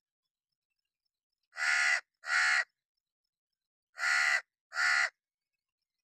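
Crow cawing: four harsh caws of about half a second each, given in two pairs about two seconds apart.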